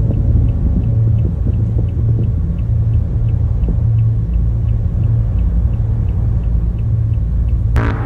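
Dark ambient background music: a low throbbing drone with faint ticks about twice a second. Just before the end a guitar-led music track cuts in abruptly.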